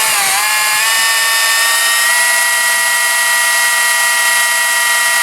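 Electric drill spinning a GM alternator through a cut-off 5/16-inch Allen key, a steady high whine. The pitch dips just after the start, then climbs back and holds steady. The alternator is being turned to clean its dirty brushes against the slip rings so it charges.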